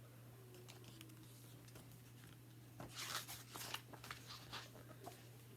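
Near silence with a low steady hum, then about halfway through a cluster of faint paper rustles and light taps from handling a picture book.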